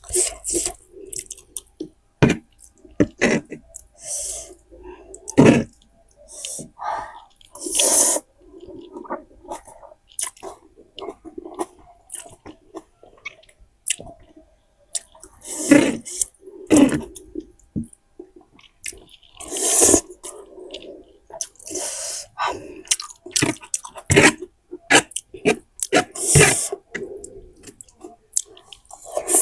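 A person eating spicy instant noodles: chewing and slurping in irregular bursts with short pauses between.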